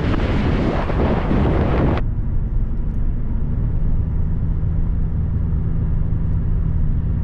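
Wind buffeting the microphone of a camera held out of a moving car's window, cutting off abruptly about two seconds in. After that comes the car's steady low driving hum of engine and tyres on the road.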